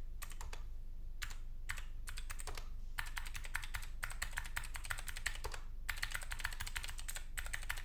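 Dark Project KD2 mechanical keyboard with Gateron optical switches and a tape mod being typed on: a few single keystrokes in the first seconds, then fast runs of keystrokes with short pauses between them.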